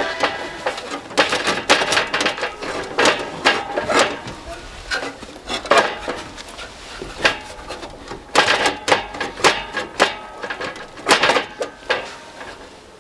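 A series of irregular knocks and clinks of hard objects being handled, some sharper and louder than others, with a busier stretch near the middle.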